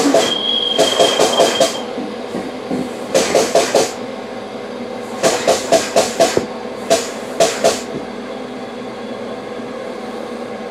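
Vapor blast cabinet's wet abrasive spray hissing on a brake caliper bracket. It comes in short groups of quick pulses, about five a second, over the cabinet's steady running noise. The pulses stop near the end, leaving only the steady running noise.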